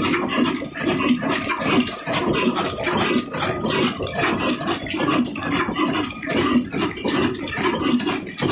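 Old International 18 HP diesel engine running, with a steady, quick, rhythmic mechanical clatter.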